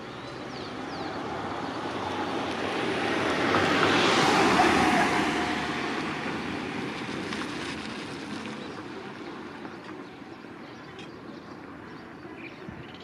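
A passing vehicle: a rushing noise with a faint hum that swells to its loudest about four to five seconds in, the hum dipping slightly in pitch, then fades away.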